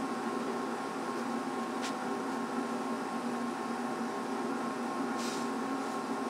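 Steady mechanical hum with several held tones, like a machine running in the room, with a faint click about two seconds in and a brief rustle around five seconds.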